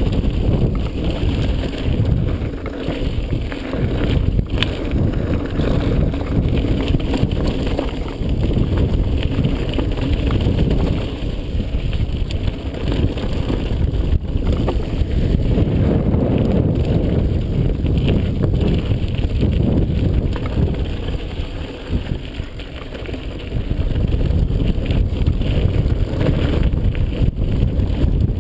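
Wind buffeting the camera microphone, mixed with mountain bike tyres rolling and crunching over loose gravel on a fast downhill run. The noise eases briefly about three quarters of the way through, then picks up again.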